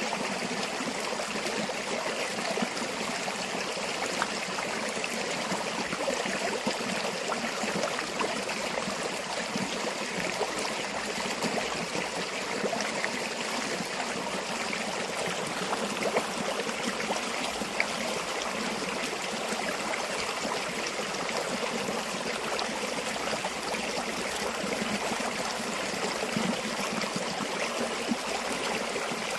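A river or stream flowing steadily over rocks, a continuous rushing with small splashes and gurgles.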